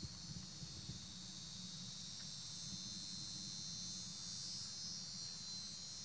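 Steady, high-pitched insect chorus, a dense shrill drone of many insects going on without a break, over a faint low rumble.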